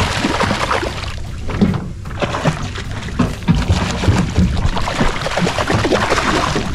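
Hooked Atlantic bonito thrashing at the surface beside the boat, loud irregular splashing of water.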